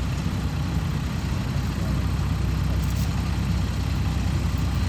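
Diesel engine of a rice combine harvester running steadily with a deep, low rumble.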